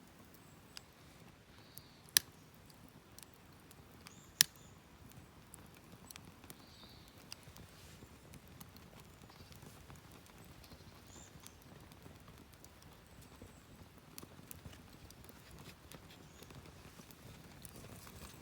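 Firewood burning in a mesh fire pit: low, steady crackling with scattered small ticks and two sharp pops, about two and four and a half seconds in.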